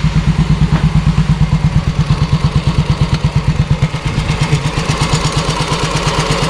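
Yamaha Mio i 125 scooter's single-cylinder four-stroke engine idling steadily with an even, regular pulse, freshly overhauled.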